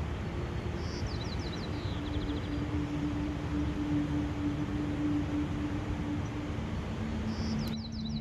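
A songbird sings the same short, high, trilled song twice, about a second in and again near the end, over a steady rushing background with a faint low hum. The background changes abruptly just before the end.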